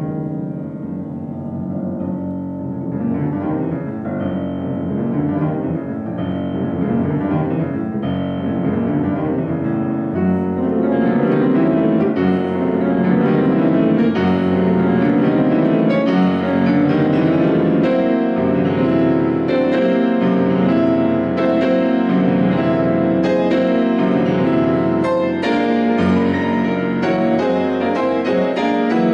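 Shigeru Kawai grand piano played solo in a dense run of rapid classical notes. It grows louder over the first ten seconds or so and then stays loud.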